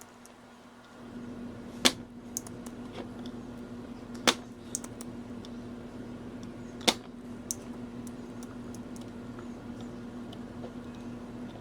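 A steady low hum from a bench device switches on about a second in, with three sharp clicks and several lighter ticks of tools being handled on the workbench.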